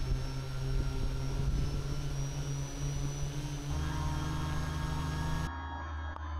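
RC airboat's propeller motor running steadily under way, a hum with a thin whine and a hiss over it. The tone shifts lower about four seconds in, and the hiss cuts off suddenly near the end, leaving a muffled hum.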